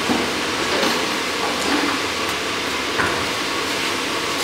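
Steady rushing of a blacksmith's forge fire under its air blast while the steel heats, with a few light metallic clinks of tools.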